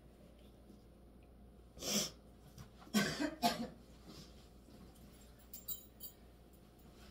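A woman coughing: a short burst about two seconds in, then a louder cough of two or three quick bursts a second later. Faint light clicks follow near the end.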